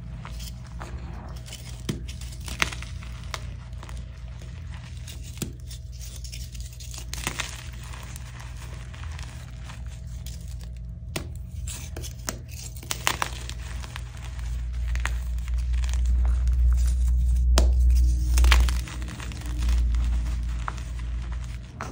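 Hands crushing and squeezing soft, crumbly gym chalk chunks and powder in a bowl: continuous crunching and crackling with a few sharp snaps. A deep rumble swells up in the last third.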